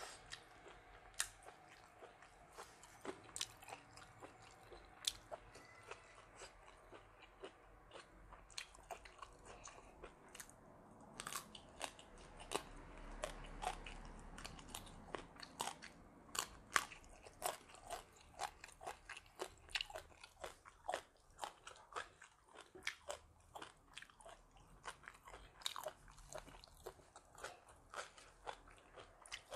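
A person biting and chewing crunchy raw vegetables close to the microphone: a run of sharp, irregular crunches that come thicker in the second half.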